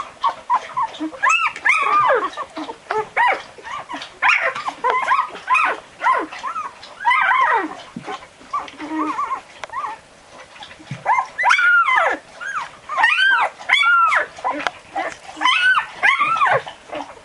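Twelve-day-old Barbet puppies whimpering and squealing, many short high calls that rise and fall in pitch, coming in bursts with a short lull about halfway through, as they crawl about searching for their mother to nurse.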